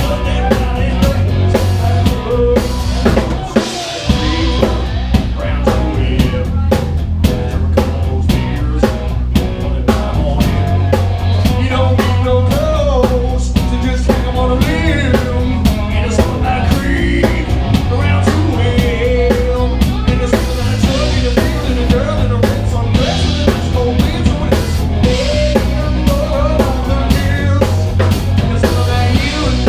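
Live rock band playing an instrumental stretch of the song: a drum kit keeps a steady beat with kick and snare under a winding lead melody.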